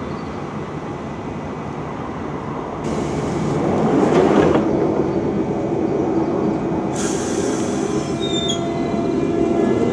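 London Underground Central Line 1992 Stock train at the platform with its equipment running. Its doors close, with a hiss about three seconds in. A second sharp hiss comes about seven seconds in as it starts to pull away, with faint wheel squeals and a steady low hum.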